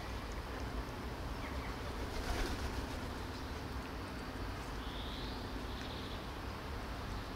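Outdoor ambience: a steady low rumble, with a few short bird chirps about five and six seconds in.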